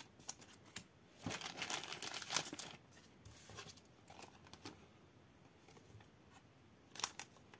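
Trading cards and their plastic sleeves being handled, with soft crinkling and rustling and a few light clicks. A longer rustle comes just over a second in, and a sharper click comes near the end.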